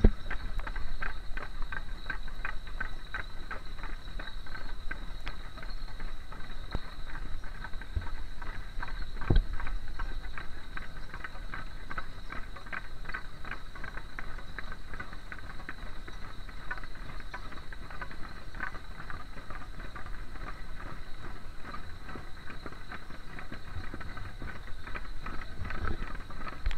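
Rapid, even clattering of a troupe of masked costumed dancers dancing with tall staffs, a dense rhythm of many small strikes a second, with one louder knock about nine seconds in.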